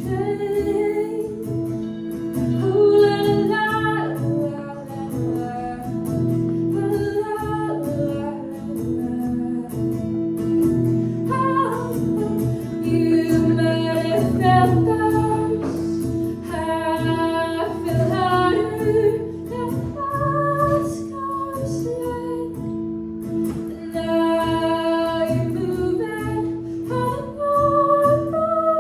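A woman singing with guitar accompaniment, with held sung notes over a steady guitar part.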